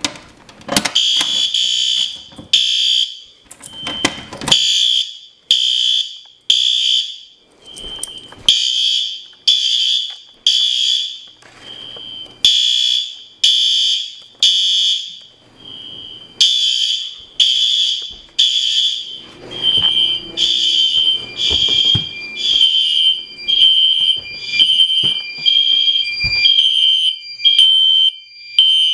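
Fire alarm horns sounding in the temporal code-3 pattern: loud groups of three beeps with a pause between, the nearest a System Sensor SpectrAlert Advance horn/strobe. About twenty seconds in, the beeps come closer together and more evenly as other horns on the same zone overlap.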